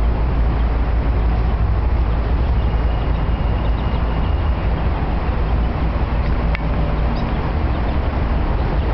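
Steady low rumble of city road traffic, with a faint thin high tone for about two seconds near the start and a single sharp click about six and a half seconds in.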